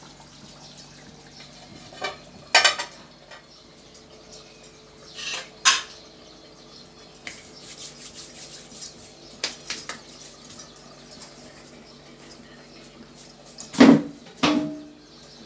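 Metal kitchen utensils clinking and knocking: a ladle and steel pots and plates, in scattered knocks with quiet gaps. The loudest two come near the end and ring briefly.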